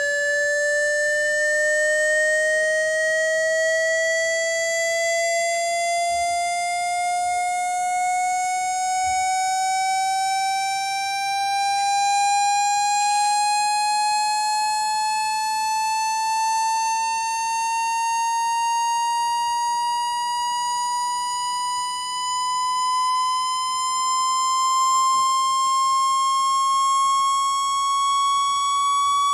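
Synthetic water-ejection tone for a phone speaker: one electronic tone with faint overtones, rising slowly and evenly in pitch by about an octave. It is meant to vibrate water out of the speaker grille.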